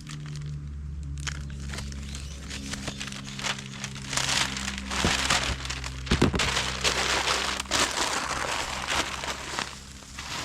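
Plastic crinkling and rustling as a new inflatable rubber boat is unpacked and handled, louder from about four seconds in, over soft background music.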